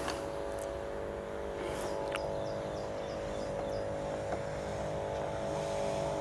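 A motor running steadily at an even pitch, with faint high chirps repeating a few times a second over it.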